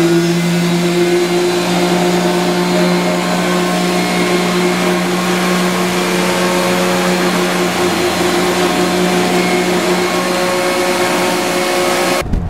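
Electric random-orbit sander with a dust-extraction hose attached, running steadily on a wooden case top with a constant hum. It cuts off abruptly near the end.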